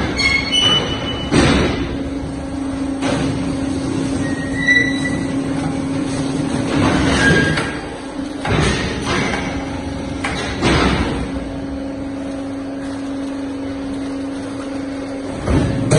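Automatic concrete curbstone-making machine (TP.RN1015 II) running: a steady motor hum with irregular heavy clanks every few seconds, and a few brief high metallic squeals near the start.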